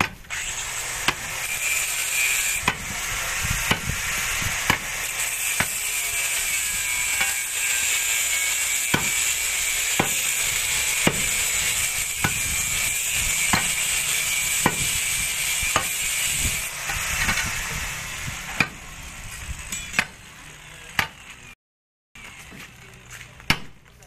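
A hand tool striking again and again, about once a second, chopping or digging at the work site. Over most of it runs a loud, steady high hiss that fades out about three quarters of the way through.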